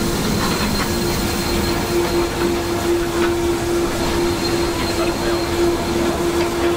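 Steam locomotive 23 023 rolling slowly along the track, heard from beside the engine: a steady rumble of running gear and wheels, with a steady tone held throughout.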